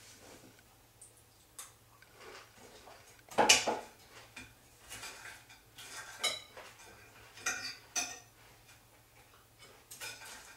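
Spoon and fork clinking and scraping against a cereal bowl and a plate as two people eat breakfast, in irregular taps with a louder knock about three and a half seconds in and a few short ringing clinks later on.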